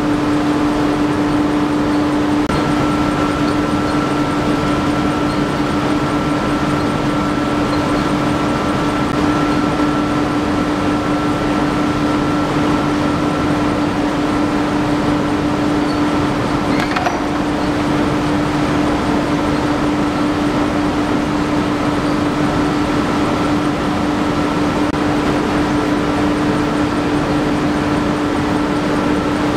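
Vibrating tea-screening machine running with a steady mechanical drone and a constant low hum. A fainter, higher whine joins a couple of seconds in.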